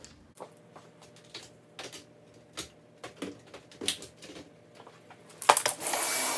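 A large dog's claws clicking and tapping on a laminate floor as it walks about, in scattered ticks. About five and a half seconds in, a sudden loud rush of noise takes over and holds.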